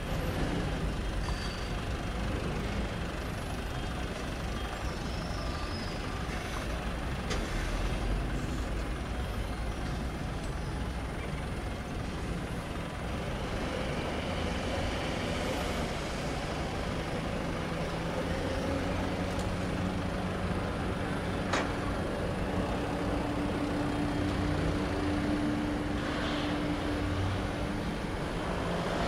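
Airbus A320's CFM56 jet engines running with a steady rumble and hiss, a faint tone in it rising slightly in pitch through the second half. A single sharp click about two-thirds of the way through.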